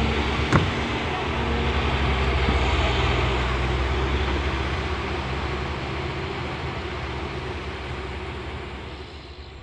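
Heavy construction machinery engine running steadily and gradually fading away, with a single sharp click about half a second in.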